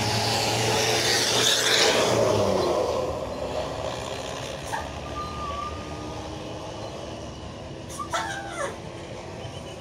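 A large road vehicle passes close by, its rushing engine and tyre noise swelling to a peak about a second and a half in and fading over the next couple of seconds. Lower steady traffic noise follows.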